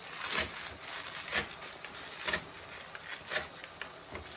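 Chef's knife chopping fresh spinach leaves on a cutting board: about five sharp knocks of the blade on the board, roughly one a second.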